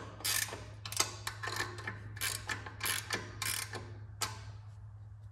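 Ratcheting wrench clicking in quick strokes as a go-kart's chain-tension bolt is tightened, stopping a little after four seconds in.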